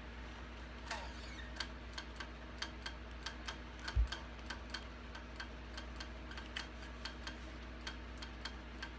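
Metronome clicking at a steady pace, about three clicks a second, with a single low thump about four seconds in.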